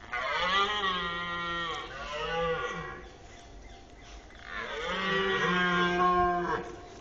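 Red deer stag roaring in the rut: two long, deep roars, the first breaking in two about two seconds in, the second starting about four and a half seconds in.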